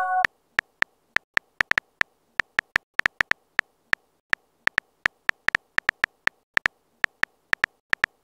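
Simulated phone-keyboard typing clicks, about four a second in uneven runs with short pauses, as a message is typed out letter by letter.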